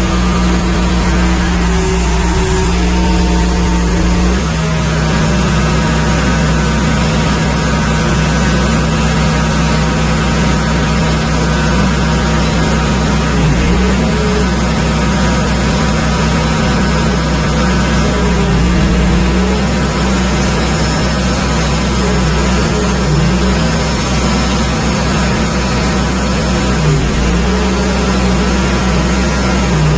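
Wood-Mizer LX150 bandsaw sawmill running steadily while sawing a magnolia log into slabs, its engine note shifting slightly about four seconds in.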